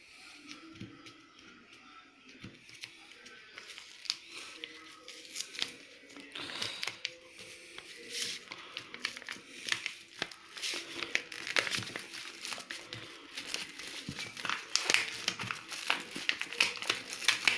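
Paper envelope crinkling and tearing as fingers pick at and peel open its glued flap, in irregular crackles that grow busier and louder in the second half.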